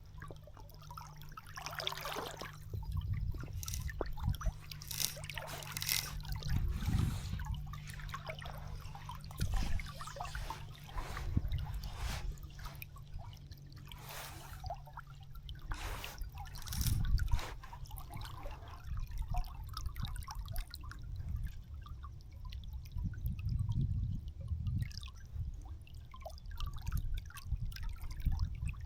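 River water trickling and lapping, with brief splashes every few seconds.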